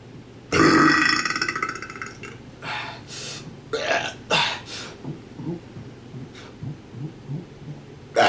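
A man deliberately burping: one loud, long burp starting about half a second in and lasting about a second and a half, followed by a few shorter, quieter burps.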